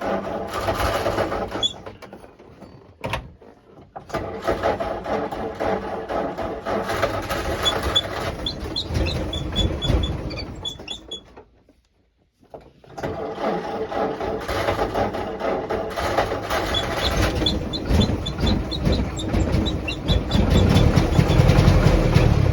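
1949 Jeep CJ-3A's four-cylinder flathead engine (Go-Devil) running roughly and unevenly. It falters about two seconds in, cuts out to near silence around the middle, then picks up again and grows louder near the end. The hard starting and rough running persist despite a new coil, points, rotor and distributor cap; the owner suspects the points or a stuck valve.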